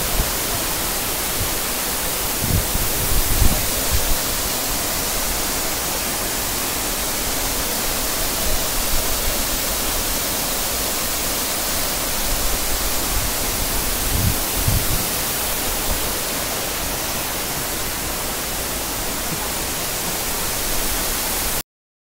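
Steady roar of a waterfall plunging into a rock pool, an even rushing hiss, with a few low bumps. It cuts off suddenly near the end.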